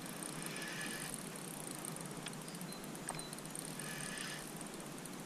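Spinning reel cranked in two short bursts of whirring, about a second in and again near the end, as a hooked fish is reeled in, with a few faint clicks in between over a steady hiss of moving air and water.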